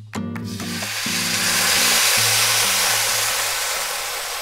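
Chicken broth poured into a hot skillet of frying oil with chiles and tomatillos, sizzling and hissing. The sizzle builds over the first couple of seconds, then slowly eases off. Soft background music plays underneath.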